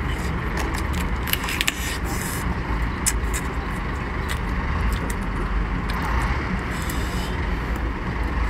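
A few sharp cracks and crunches of swimming-crab shell being pulled apart and chewed, over a steady low rumble.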